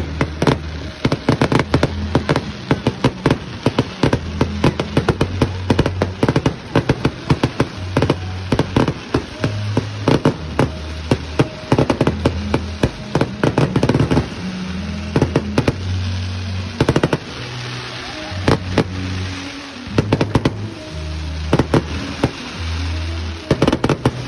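Aerial fireworks crackling and popping in rapid, dense volleys that thin out about halfway through and pick up again near the end, with music and its bass line playing underneath.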